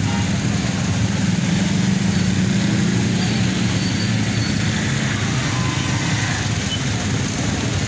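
Steady street noise with a continuous low traffic and engine rumble.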